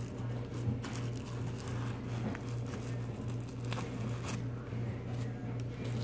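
Plastic trash bag crinkling and rustling as it is pulled and picked out through the cut openings of a hardened paper clay pumpkin shell, with a few sharper crackles, over a steady low hum.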